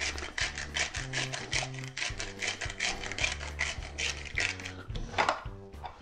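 Hand-held black pepper grinder being twisted, its grinding burr crushing peppercorns in a fast run of dry, rasping clicks, several a second.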